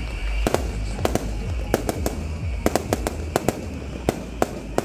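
Fireworks going off: irregular sharp cracks and pops, about three a second, over a steady low rumble.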